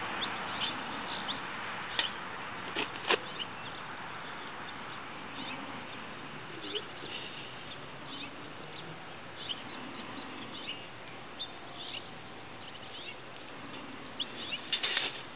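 A few sharp metallic clicks and rattles from a wire-mesh Havahart live trap as its door is worked open, the loudest about two and three seconds in and another cluster near the end. Under them is a steady outdoor hiss with scattered short bird chirps.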